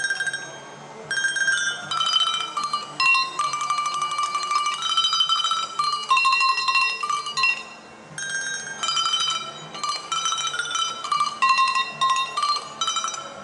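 A tune played on squeezed rubber chickens: a run of held, reedy squawking notes at several pitches, in short phrases with brief pauses.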